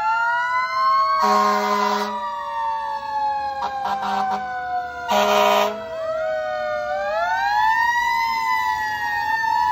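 Several emergency-vehicle sirens wailing at once from a passing fire engine and police vehicle, their pitches slowly rising and falling past one another. Two long horn blasts cut through, about a second in and about five seconds in, with a few short toots between them.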